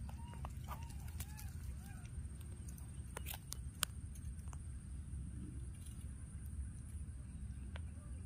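Baby monkey crying: a run of short, high squeaks, each rising then falling, about five in the first two seconds, then a few sharp clicks near the middle over a steady low rumble.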